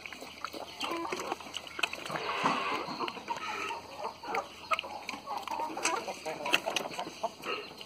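A sow eating wet mash from a tub, with many quick smacking and chewing clicks, while hens cluck close by.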